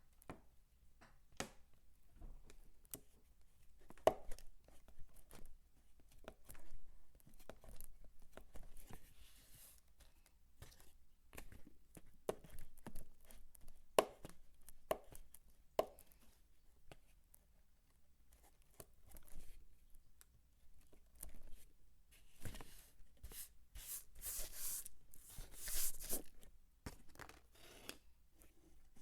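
A bar of soap being chopped and crumbled by hand: irregular sharp crunches and taps, with a denser, louder stretch of crackling a little past the middle.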